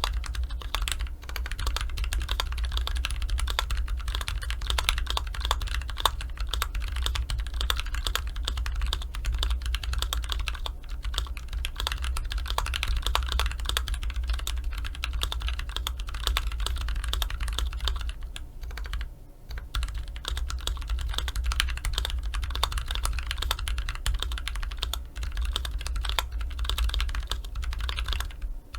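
Fast, continuous typing on a KBD67 MKII mechanical keyboard with Holy Panda POM tactile switches lubed with Krytox 205g0, a brass plate, case and plate foam, and GMK Cafe keycaps. The keystrokes come with a low thud carried through the desk to the microphone. The typing pauses briefly a few times.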